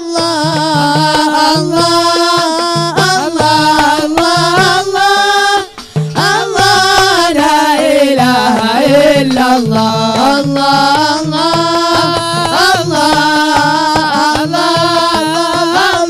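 Male voices singing an Arabic qasidah in long, wavering held notes over a steady, quick rhythm of hand-played frame drums.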